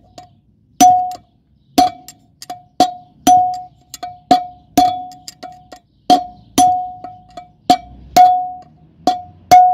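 Hammer blows on a steel drift driving a wheel-bearing outer race into a Saipa Pride rear hub, about two strikes a second, worked slowly from side to side. Each blow rings with a short, clear metallic note. The speaker points to this change in sound as the sign that the race has bottomed in its seat.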